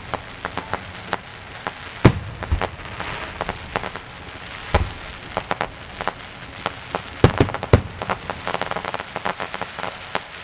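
Aerial fireworks shells bursting at a few hundred yards, the salutes coming through as small pops. A string of sharp bangs, the loudest about two seconds in, near five seconds, and a close pair near the end, with runs of fast crackling between them.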